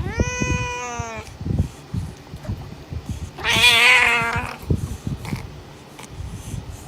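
Domestic cat meowing twice: a call about a second long at the start, then a louder call with a wavering pitch about three seconds later, over soft low knocks.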